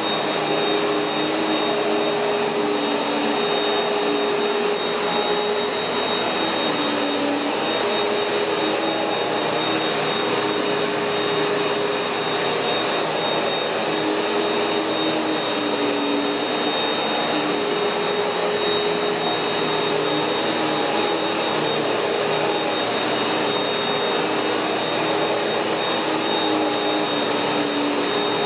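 Panasonic MC-UG471 bagged upright vacuum cleaner running steadily: a rush of air with a thin high whine from the motor.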